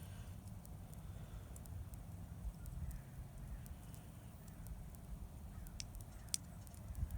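Quiet handling of a plastic watch and its small parts: a few small, sharp clicks near the end over a faint low rumble.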